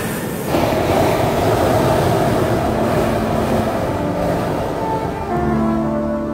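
Steady rushing machine noise, joined by held music notes about five seconds in.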